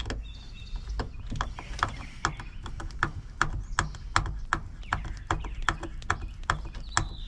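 Metal parts of a Baldwin mortise lock clicking as the mechanism is worked by hand, a fast irregular run of sharp clicks, about three or four a second.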